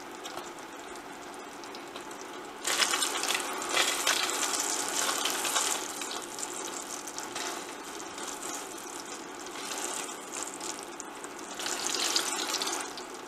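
Slices of Spam sizzling in hot oil in a stainless steel pan, a steady frying hiss on a hotplate just turned up for browning. The sizzle gets louder about three seconds in and again near the end as the slices are turned with tongs.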